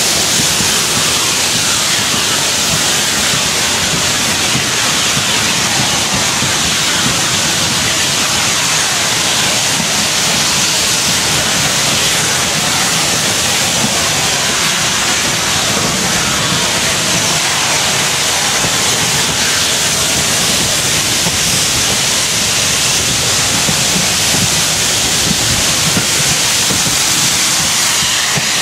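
Four steam locomotives heading a train and working hard, their exhaust blended into a steady, loud rush with no separate beats, heard from an open carriage window.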